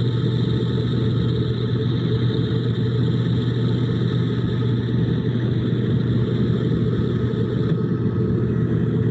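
Steady low rumble with a constant hum, like a running vehicle or engine heard close by, unchanging throughout.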